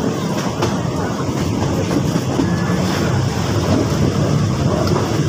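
Steady running noise of a moving passenger train heard from on board: a continuous low rumble and rattle of the carriage, with a few faint clicks from the wheels on the track.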